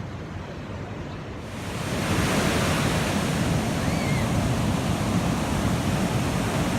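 Sea surf on a sandy beach: a steady rush of breaking waves that swells louder about a second and a half in.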